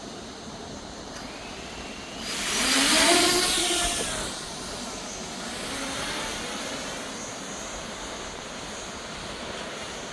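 Small FPV drone's motors and propellers whining past at close range, swelling to a loud peak for about two seconds with a gliding pitch, then dropping back to a steady lower hum.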